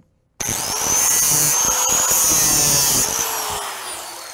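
Handheld electric angle grinder with a red disc switched on, its high whine rising fast as the motor spins up, running steadily for a couple of seconds, then switched off and winding down with a slowly falling whine.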